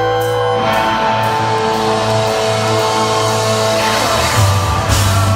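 Live rock band playing in an arena, electric guitar over sustained held chords as the song builds, with a rising slide near the end.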